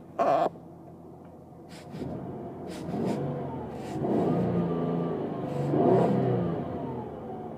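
A 2002 Ford Escape's 3.0 L V6 engine revved from inside the closed cabin, rising and falling in several swells that peak about six seconds in, after a short loud knock just after the start. The engine has an idle problem: it shakes violently and the check-engine light is on.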